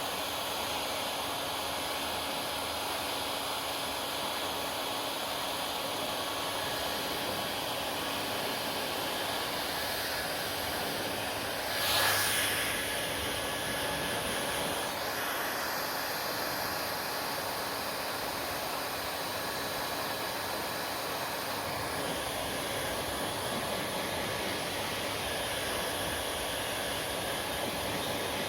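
Hair dryer running steadily with an even blowing hiss and a faint motor hum, swelling briefly louder once partway through.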